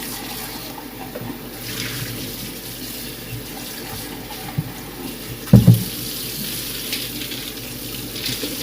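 Kitchen tap running steadily into the sink, with one loud clunk a little past halfway.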